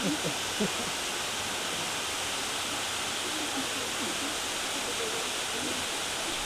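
Steady rushing of a waterfall, an even roar that does not change, with faint voices briefly at the start and again about halfway through.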